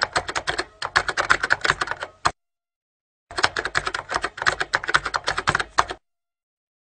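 Typing sound effect: rapid keystroke clicks in two runs, the first about two seconds long, then a pause of about a second, then a second run of nearly three seconds that stops abruptly.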